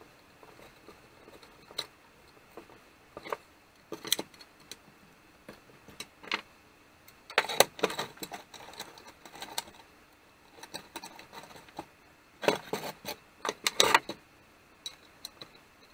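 Scattered clicks, clinks and knocks of small metal chainsaw parts and hand tools being handled during reassembly, coming in two busier clusters about halfway through and near the end.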